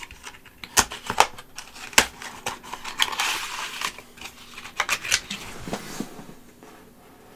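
Cardboard phone-case box and its plastic tray being opened and handled: a series of sharp clicks and snaps, with a sliding, scraping rustle about three seconds in as the tray comes out of the box.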